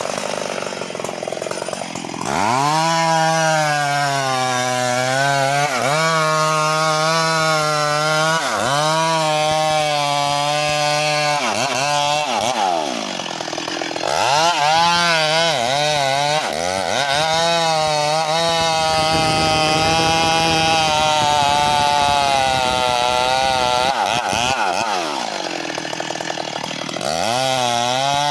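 Stihl MS381 two-stroke chainsaw held at high revs while cutting mahogany. The engine pitch sags and climbs back several times as the throttle is eased off and opened again through the cut.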